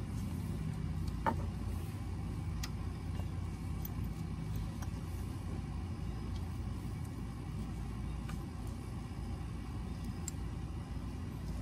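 A steady low hum in the background, with a few light, sharp metal clicks as a 5/8 spark plug socket and extension are worked down into a spark plug well.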